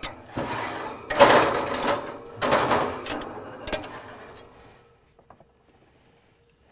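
Rattling and scraping of cookware at a stainless-steel gas grill as the lid is raised and a cast-iron frying pan of grape tomatoes is handled. It is loudest about a second in and fades out by about five seconds.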